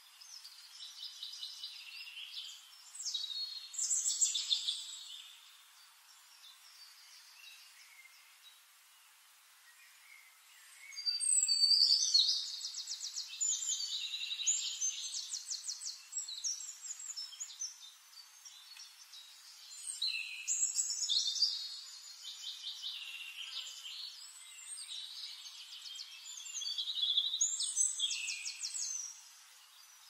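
Cockatiel chattering and warbling in several bouts of rapid, high-pitched trills, with a quieter pause partway through and the longest bout in the middle.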